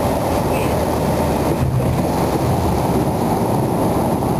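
Cessna Caravan's single turboprop engine and propeller, a steady loud drone heard from inside the cabin, with a low hum that stays level throughout.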